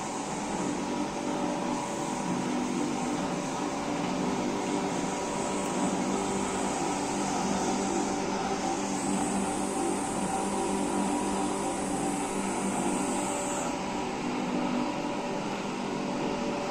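Small gas-fired drum coffee roaster running early in a roast: a steady mechanical hum from its drum motor and fan, with a high hiss that cuts off abruptly near the end.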